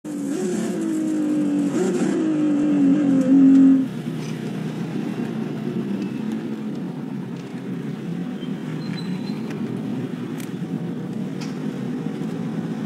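Ferrari race car's engine heard from inside the cockpit, loud, its pitch sinking with a jump back up about two seconds in as it shifts gear. It cuts off sharply about four seconds in, giving way to the lower, steady rumble of a Koenigsegg's V8 idling as the car rolls slowly.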